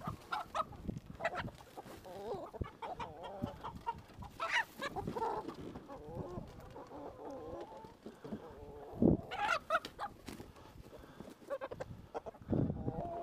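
Chickens clucking and squawking throughout, the alarm calls of birds being caught while a white rooster is held in a long-handled net. A single sharp thump comes about nine seconds in.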